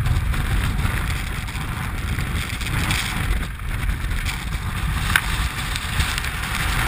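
Strong wind buffeting a helmet-mounted camera's microphone: a steady low rumble with a gusty hiss over it, and a single sharp click about five seconds in.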